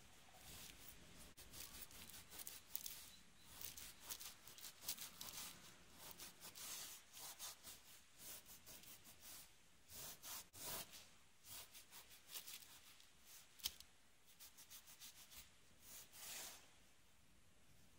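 Faint, quick, irregular scrubbing strokes of a dry cloth rubbing sticky adhesive residue from old cushion tape off a painted window sill. A single sharp click comes about two-thirds of the way through.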